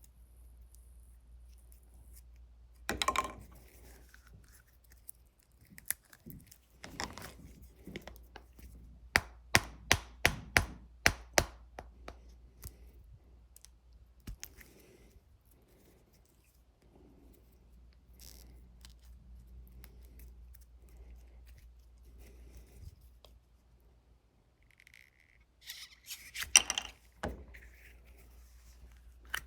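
Hand tools working wood veneer: a short scrape, then a quick run of about eight sharp taps, roughly two or three a second, and a few more sharp knocks and scrapes near the end.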